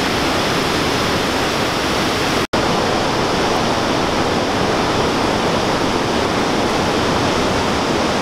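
River water rushing over a stepped weir: a loud, steady roar of falling, churning water, broken by a momentary dropout about two and a half seconds in.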